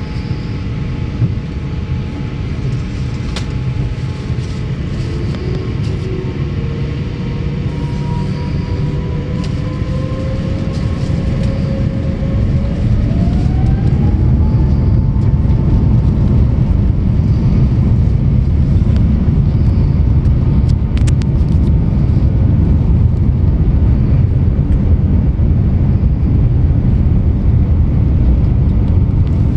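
Airbus A350-900's Rolls-Royce Trent XWB-84 turbofan engines heard from inside the cabin: a steady low rumble with a whine that rises in pitch about halfway through as the engines spool up. The sound then stays louder and steady.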